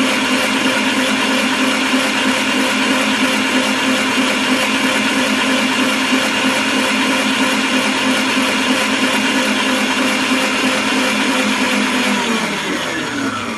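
Electric stand mixer running steadily, its wire balloon whisk beating sponge-cake batter in a stainless steel bowl. Near the end the motor is switched off and its whine falls in pitch as it winds down.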